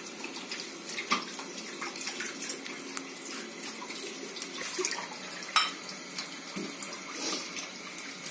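Water running from a kitchen tap into the sink as peeled potatoes are handled under it, with a few sharp knocks, the loudest about five and a half seconds in.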